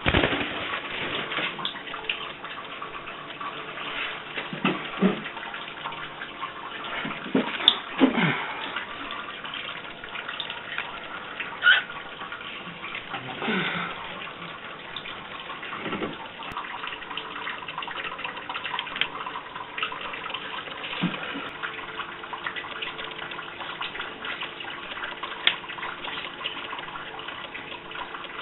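Water running steadily from a tap, with occasional sharper splashes.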